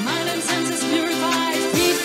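Electronic dance music from a DJ set: a pulsing bass line under layered melodic lines that bend in pitch, one sliding sharply down near the end.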